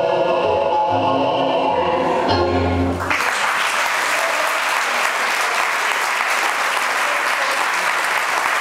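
Tango music with a pulsing bass beat ends abruptly about three seconds in, and the audience breaks into loud, steady applause that carries on to the end.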